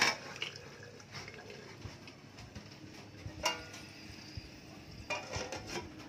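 Metal cookware clinking: a sharp clank at the start, a ringing clink about halfway through and a short run of clinks near the end, over a faint steady hiss.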